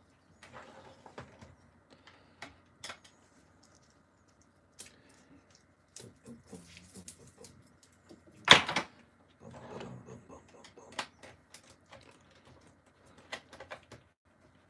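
Light plastic clicks and knocks from a hard plastic Buzz Lightyear toy being handled and turned over on a cutting mat, with one louder knock about eight and a half seconds in.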